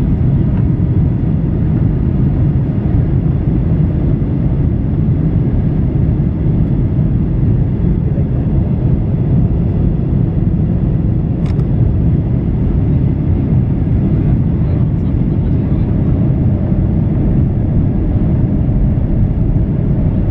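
Boeing 737-800 cabin noise: the steady, deep rumble of the engines and airflow heard from inside the cabin, with one brief click about halfway through.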